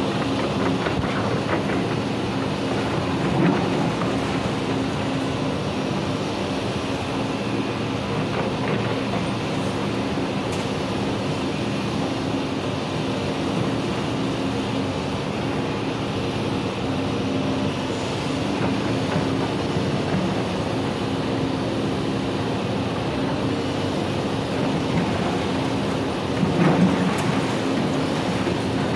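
Tracked demolition excavator running steadily, its engine and hydraulics working the arm and jaw attachment. A few crunches and knocks of rubble and metal come through, the loudest about three seconds in and near the end.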